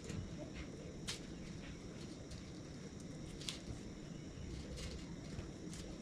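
Faint outdoor ambience: a steady low rumble with four short, high chirps or clicks spread across a few seconds, the clearest about a second in and midway.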